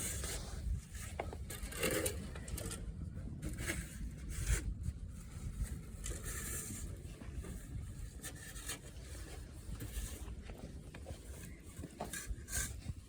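Wind rumbling on the microphone outdoors, with scattered short scrapes and crunches in snow.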